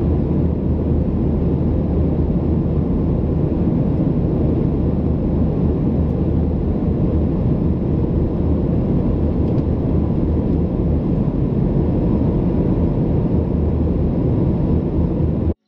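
Steady cabin noise inside a Boeing 737-800 in cruise: a dense, even rush with a constant low hum underneath. It cuts off suddenly near the end.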